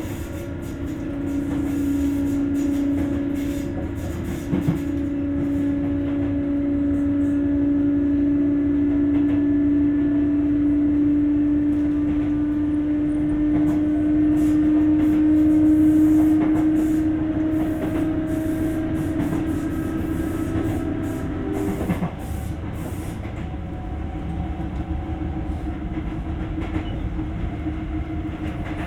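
Sotetsu 8000 series electric train running, heard from inside the car: the Hitachi GTO-VVVF inverter and traction motors give a strong humming tone that creeps slowly up in pitch, then drops back and goes quieter about 22 seconds in. Wheel rumble and occasional rail-joint clicks run underneath.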